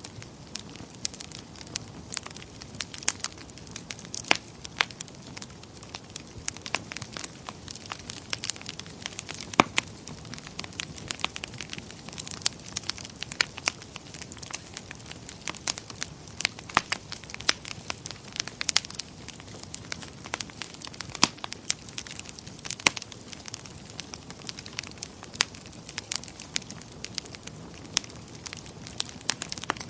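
Wood fire in a fireplace crackling: irregular sharp pops and snaps, several a second, over a soft steady hiss of burning.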